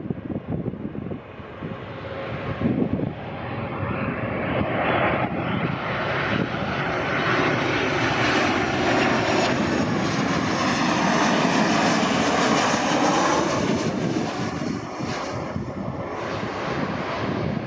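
Boeing 737 twin turbofan jet engines on landing approach, passing overhead. The roar builds, is loudest a little past the middle, then eases as the jet moves away, with some wind rumble on the microphone at the start.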